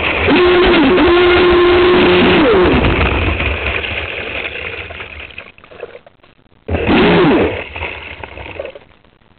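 Aquacraft SV27 RC boat's electric motor whining at speed with water rushing past the hull. The pitch dips briefly twice as the throttle is eased, then the motor winds down and fades almost to quiet, before a short burst of throttle about seven seconds in rises and falls away again.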